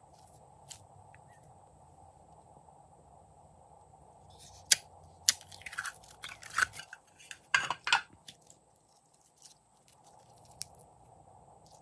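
Thick glossy slime being squeezed and pulled apart by hand, giving a cluster of wet clicks and pops in the middle, with a few single clicks before and after.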